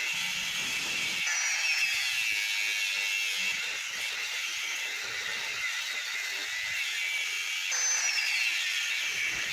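Angle grinder cutting a steel axle housing tube: a steady high grinding noise, with the motor's whine falling in pitch twice as the disc bites into the metal.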